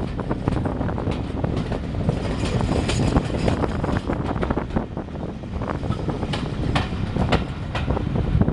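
A train running past on the rails: a steady low rumble with irregular clicks and clatter from the wheels and track, likely behind a heritage diesel locomotive.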